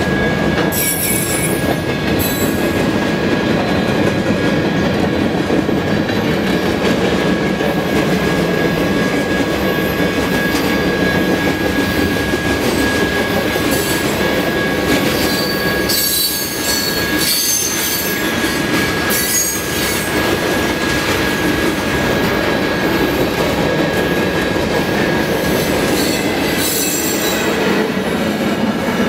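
Freight train cars rolling steadily past at speed, with the constant rumble and clatter of steel wheels on rail. Several short high-pitched wheel squeals come and go, and a steady high tone runs underneath.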